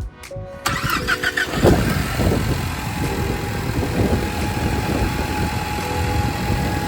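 Ford Mustang engine cranked on the starter for about a second, catching and settling into a steady idle after a spark plug change; it runs evenly with no obvious misfire stumble.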